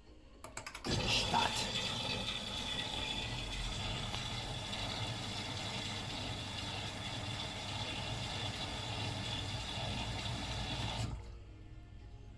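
Miele W Classic front-loading washing machine starting its cycle: a few clicks as it is started, then a steady rush of water filling the machine for about ten seconds, which cuts off suddenly near the end as the intake stops.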